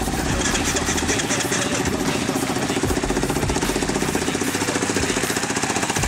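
Quad bike engine running at a steady idle, with a rapid, even chugging pulse.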